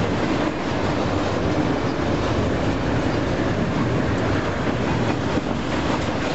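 Double-stack intermodal container cars of a freight train rolling past close by: a loud, steady rumble of steel wheels on the rails.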